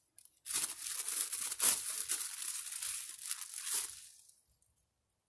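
A plastic bread bag crinkling and rustling as seeded rolls are pulled out of it. The crackle starts about half a second in and dies away after about four seconds.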